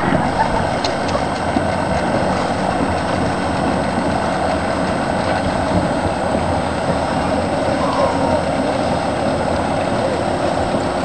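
Many outboard motors running together as a pack of Lund aluminium fishing boats races away from the start, a steady, dense mass of engine noise.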